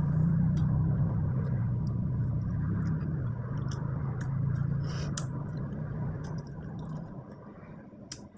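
Small wet clicks and smacks of someone chewing ripe mango and picking slices from a bowl with the fingers, over a steady low hum that fades out about seven seconds in.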